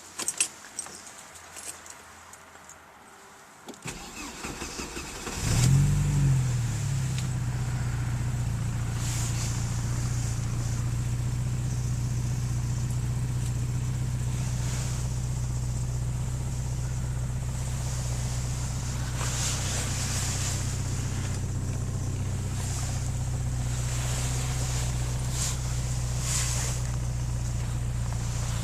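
Porsche 944 Turbo's turbocharged four-cylinder engine cranking and catching about five seconds in. It flares briefly, then settles into a steady idle.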